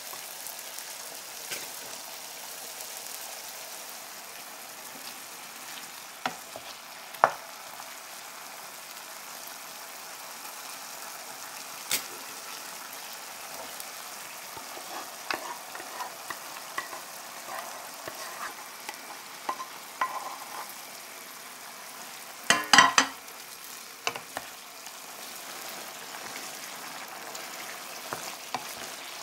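Paprika-seasoned chicken breast pieces sizzling steadily in oil in a nonstick pan, with scattered knocks and scrapes of a wooden spatula stirring them. About three-quarters of the way through comes a quick run of louder knocks.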